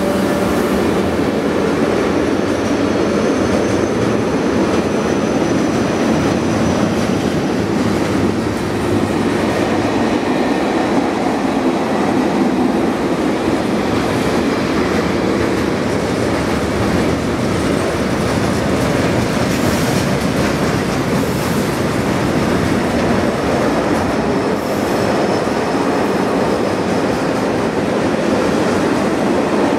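Freight train of tank wagons rolling steadily through the station, a continuous loud rumble of steel wheels on rail, with a faint high wheel squeal now and then.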